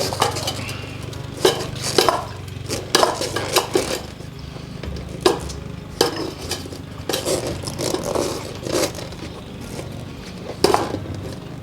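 Irregular knocks, clinks and scrapes of a dirt bike wheel rim and tire being handled as a new inner tube is tucked in, over a steady low hum.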